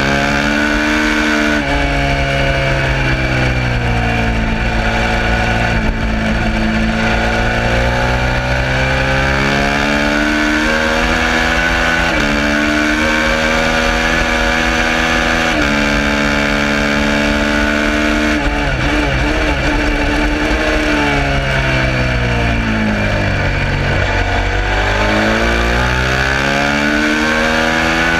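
Suzuki SV650's V-twin engine at race pace. It climbs in pitch through the gears, with upshifts about two seconds in and again around twelve and sixteen seconds in. In the back half it falls as it is shifted down under braking, then pulls up through the revs again near the end.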